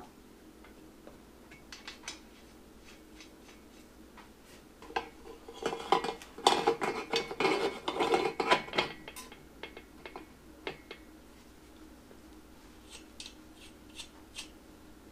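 Metal parts clinking and scraping as a motorcycle swing arm is handled and worked onto the rear wheel's final drive housing: scattered clicks, a dense run of clinks and scraping from about five to nine seconds in, and a few light clicks near the end.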